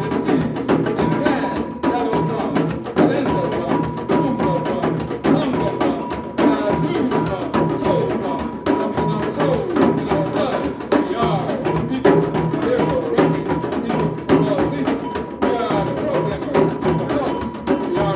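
Live percussion music: a dense, fast run of drum and wood-block strikes, with a steady high tone running under it.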